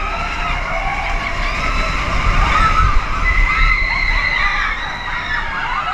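Several riders screaming and shouting together over the low, steady rumble of the Expedition Everest roller coaster train running on its track. The screams are loudest in the middle.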